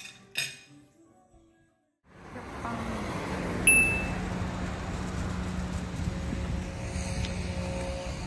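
Soft background music with two light clinks of a glass, then, after a brief silence, street ambience: a steady traffic rumble with a low hum, and a single short high ding about three and a half seconds in.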